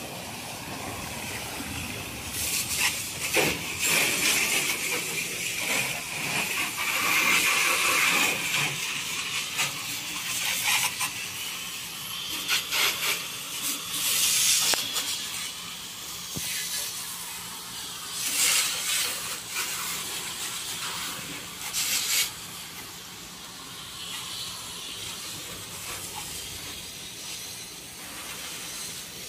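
Water jet spraying onto a truck's metal body and chassis: a continuous hiss that surges louder in bursts as the jet sweeps across the surfaces.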